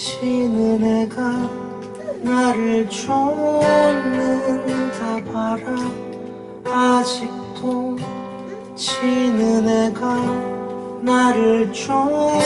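Acoustic guitar being strummed, with a man singing over it.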